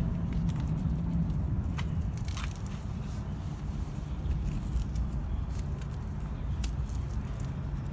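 Canopy sidewall fabric rustling and scraping as it is pressed against the tent leg and its Velcro strips fastened, with a few short crackles and rasps scattered through, over a steady low rumble.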